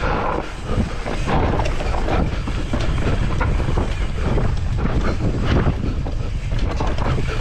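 Mountain bike riding down a dirt trail: wind buffeting the microphone over a steady low rumble from the tyres, with frequent clicks and rattles from the bike.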